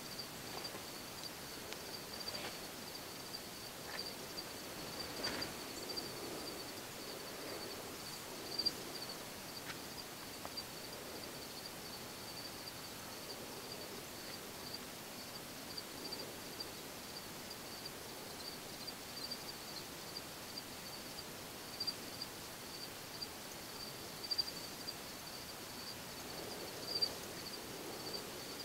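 A steady, high-pitched insect chorus trilling without pause, with a few soft clicks and rustles scattered through it.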